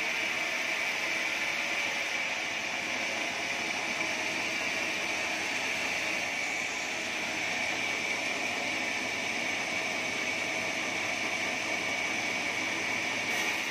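Sawmill band saw cutting lengthwise through a thick acacia timber: a steady hissing whine with one high tone held constant throughout.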